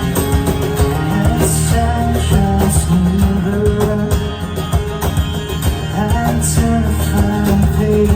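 Live band playing an instrumental passage of a song between sung verses, with a melodic lead line over sustained bass notes.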